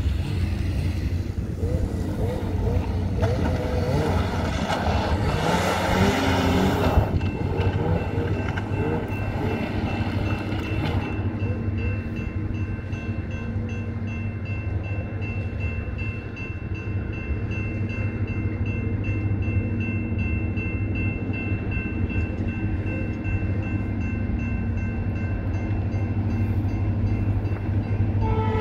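A snowmobile engine passes, loud and wavering in pitch over the first several seconds, then fades. Then a railroad crossing signal bell rings steadily with evenly repeating strokes, over a constant low rumble.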